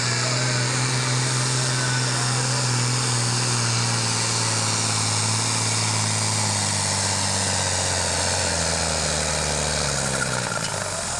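Turbocharged diesel engine of an International Harvester farm-stock tractor pulling a sled at full throttle, a steady heavy drone. About eight and a half seconds in the pitch drops as the engine lugs down under the load, and near the end the engine sound falls away.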